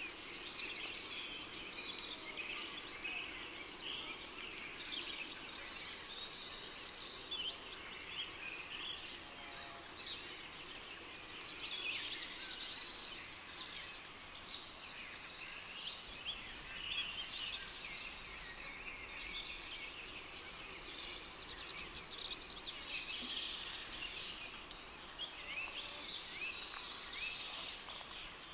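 Tropical rainforest ambience: a cricket chirping in an even, rapid rhythm of about three chirps a second, which breaks off for a couple of seconds about halfway through. Birds chirp and call faintly around it.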